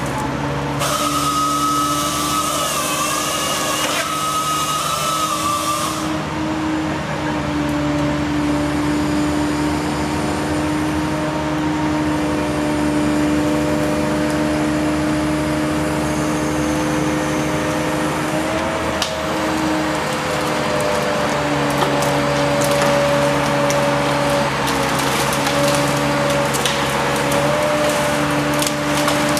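DOLL Tree Trimmer felling crane running with a steady machine hum. Its saw head whines for about five seconds near the start as it cuts. In the last third, cracking and crackling wood grows as the cut section of tree comes down through the branches.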